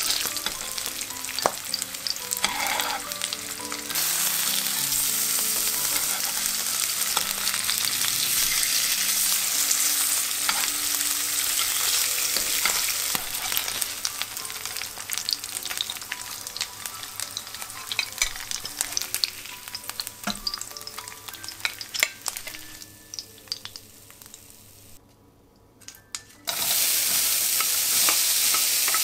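Salmon fillets sizzling in hot olive oil in a frying pan, with scrapes and taps of a metal spatula as they are turned. Near the end the sizzle dies down almost to nothing, then comes back loud as chopped onion goes into the pan and is stirred.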